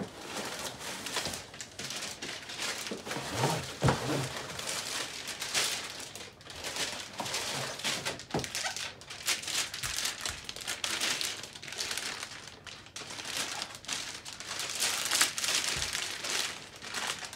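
Snowboard packaging being opened and handled: irregular crinkling and rustling of wrapping and cardboard, with a few knocks along the way.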